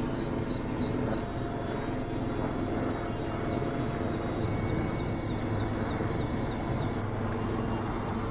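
Helicopter running with a steady low hum, with short high chirps repeating over it twice.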